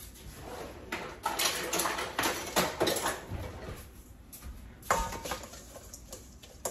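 A bowl and utensils clatter and scrape while seasoned raw shrimp are mixed, with a sharp knock about five seconds in.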